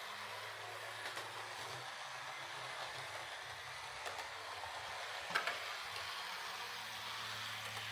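Jouef TGV model train running along its track, its electric motor giving a steady low hum, with a few light clicks and one sharper click about five seconds in.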